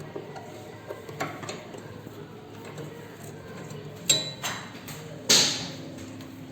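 Scattered knocks and clinks of a window frame and its glass shutter being taken out of the wall opening. Two louder sharp knocks come about four and five seconds in, the second ringing on briefly.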